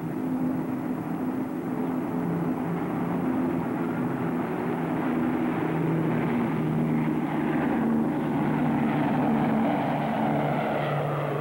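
Four-engined propeller airliner taking off, a steady engine drone that grows louder over the first eight seconds or so, then eases slightly as it climbs away.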